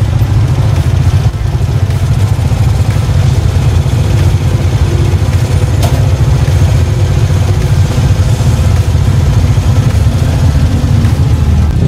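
Motor vehicle running, heard while riding in it: a steady, loud low engine and road rumble, with one brief click about six seconds in.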